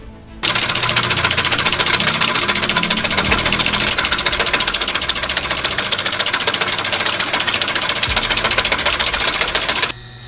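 Industrial cylinder-arm sewing machine stitching baseball glove parts, running fast and steady with a rapid, even clatter. It starts about half a second in and stops abruptly near the end.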